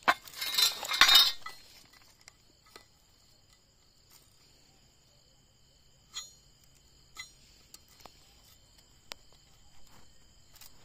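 A hand rubbing hard across a steel plate for about a second and a half, wiping out a chalk marking. A few seconds later a steel tape measure is laid along the plate and clinks lightly against the steel four times, about a second apart.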